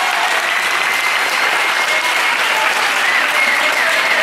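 A group of seated onlookers applauding steadily, a continuous clatter of many hands clapping, with a few voices calling out among it.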